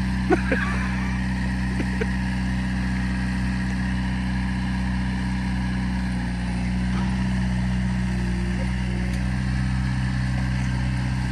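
Large engine running steadily at a constant speed, with a few light knocks in the first couple of seconds and a slight rise in its note about seven seconds in.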